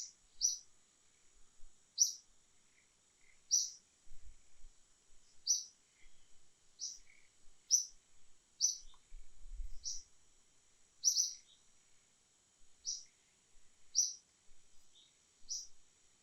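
A bird calling in short, high chirps, one about every second and a half, over a faint steady high-pitched drone.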